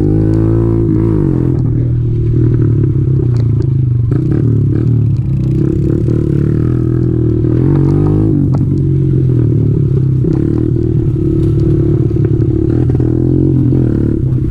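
Kawasaki KLX110 pit bike's small single-cylinder four-stroke engine running under way, its pitch dipping and rising several times as the throttle is eased and opened. Scattered clicks and knocks from the bike over rough ground.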